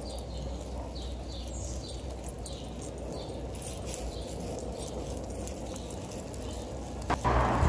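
A bird calling over and over in short, falling high-pitched chirps, about two or three a second, over a low steady rumble. Near the end a sharp knock, then a louder rush of noise sets in.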